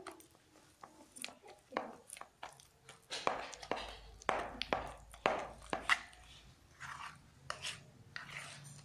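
Thick tofu-meatball dough being stirred and beaten in a plastic bowl: a utensil scraping and tapping against the bowl in irregular strokes, a few a second.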